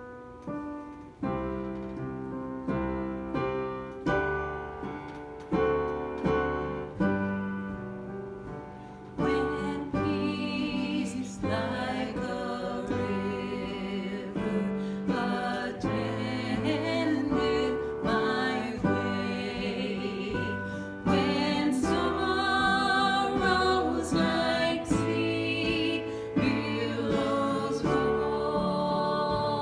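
Worship song: piano chords, then a voice comes in singing over the piano about nine seconds in.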